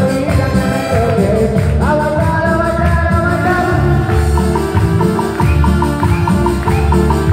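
Live Latin dance music: electronic keyboard melody with held, gliding notes over a steady bass beat, with a singer on a microphone.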